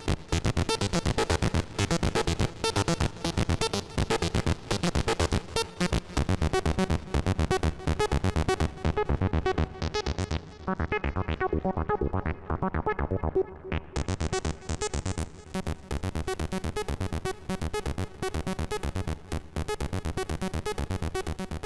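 Modular synthesizer patch built around a 3340-chip Eurorack VCO, playing a fast sequenced run of short repeated notes. From about ten seconds in the bright upper tones fade away, then come back suddenly about four seconds later.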